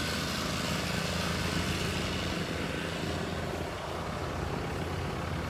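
Pickup truck engine idling: a steady low rumble with a hiss over it.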